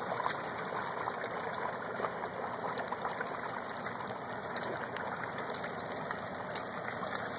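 Hot oil bubbling and sizzling hard around a whole turkey in a deep-fryer pot, a steady frothy hiss with faint scattered pops.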